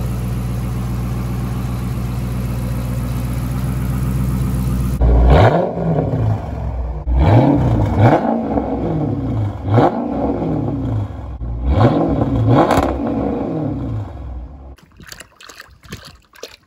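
A 5.7 Hemi V8 idling steadily, then revved up and back down about four times before the engine sound cuts out near the end. It is being run on a distilled-water fill after a water pump replacement, to warm it until the thermostat opens for the cooling-system flush.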